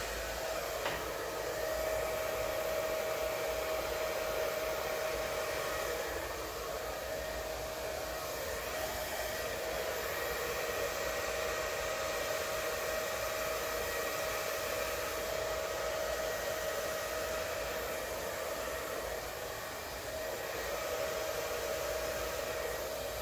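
Hair dryer running steadily, a constant rush of air with a steady hum-like tone, blowing wet acrylic paint across a canvas in a Dutch pour.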